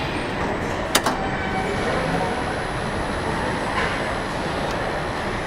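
Steady mechanical running noise of car assembly-line machinery, with one sharp click about a second in.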